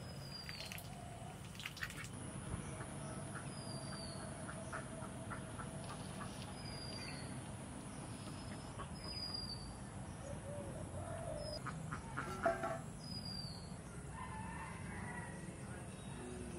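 Farmyard birds: a small bird repeats a short, high, falling call every two to three seconds, while domestic fowl (ducks and chickens) cluck and call now and then, loudest about twelve seconds in.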